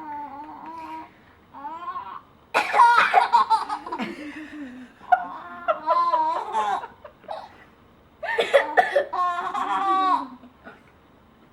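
Seven-month-old baby laughing and squealing in high-pitched bursts, with coughs mixed in during a turn-taking coughing game. It is loudest in two stretches that start suddenly, about two and a half and eight seconds in.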